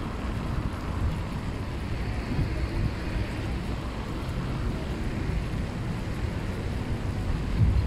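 Wind buffeting the microphone of a bicycle-mounted camera while riding, a low uneven rumble, with one stronger low gust or bump near the end.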